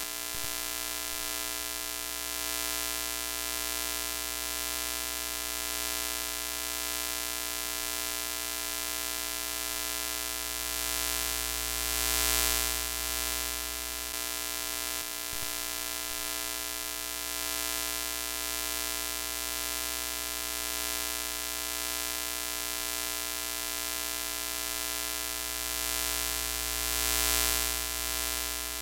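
Broken-TV glitch sound effect: a steady electrical buzz with many overtones under a static hiss. The hiss swells twice, about twelve seconds in and again near the end.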